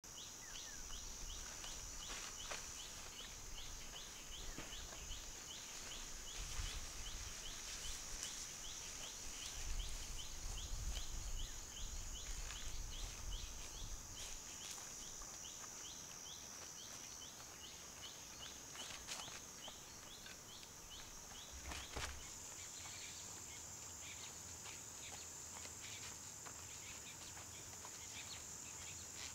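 Insects drone steadily at a high pitch, with a quick run of chirps, about four a second, through the first half. A low rumble comes and goes under them in the first half.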